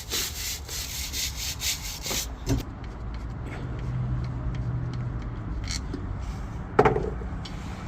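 Greasy metal shifter parts being scrubbed by hand with soap and water, in quick, even back-and-forth strokes that stop about two seconds in. A low steady hum, a few light clicks and one short knock follow.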